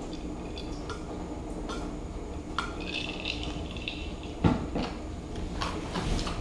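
Glass beer mug set down on a table with a sharp knock about four and a half seconds in, after a few small clicks and clinks as the beer is drunk, over a steady low background hum.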